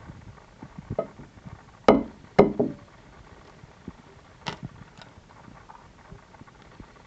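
A white hen's egg knocked sharply twice against a hard edge to crack its shell, followed a couple of seconds later by light clicks and crackles as the shell is pulled apart by hand.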